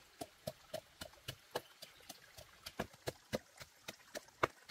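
A knife chopping on a wooden cutting board in quick, slightly irregular strokes, about four a second.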